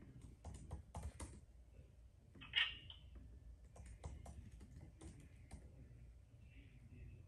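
Faint, irregular keystrokes on a laptop keyboard, with one brief louder sound about two and a half seconds in.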